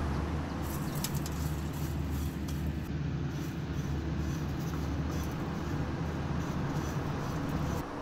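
A steady low hum, with light scraping and rattling as a silicone spatula stirs dal, peppercorns and dry ginger in a stainless steel pan. The hum drops away just before the end.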